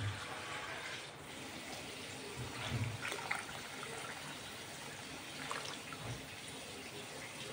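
Water poured from a bowl into a pan of simmering rendang spice sauce, splashing and gurgling into the liquid.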